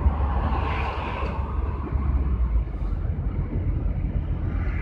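Steady low rumble of engine and road noise inside the cab of a GAZ Gazelle van driving along a road.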